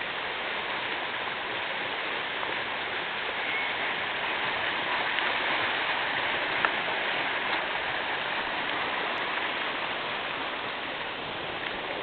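Muddy floodwater rushing over the ground: a steady, unbroken wash of water noise.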